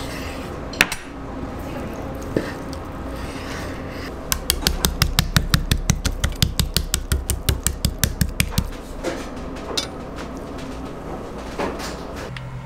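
Steel knife knocking against a wooden cutting board while slicing cooked steak. There are a couple of single sharp knocks, then a quick run of clicks, about eight a second for some four seconds, over a steady low kitchen hum.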